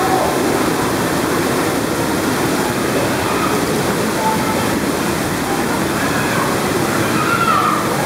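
Rushing, churning water in the channel of a wild-river water slide, loud and steady, heard from right at the water surface.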